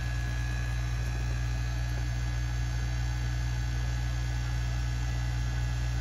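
Steady electrical mains hum with a faint, thin high tone above it, unchanging throughout.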